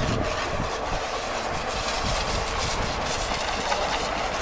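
Log sawmill rig running, a steady mechanical noise with a faint steady hum.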